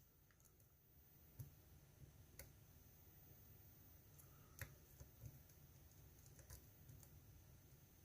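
Faint, sparse clicks of a lock pick working the pins of a GEGE euro cylinder, about five small ticks a second or so apart.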